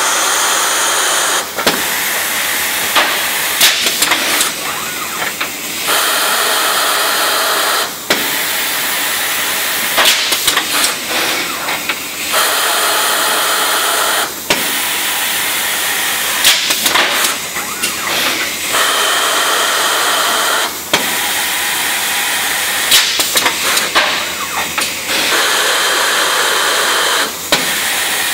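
Plastics-processing machinery running through repeated cycles: a steady air hiss lasting about two seconds comes back every several seconds, with clattering and sharp clicks in between.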